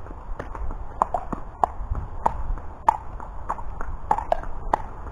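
Horse's hooves clip-clopping on wet concrete at a walk: crisp, evenly paced hoof strikes, some landing in quick pairs.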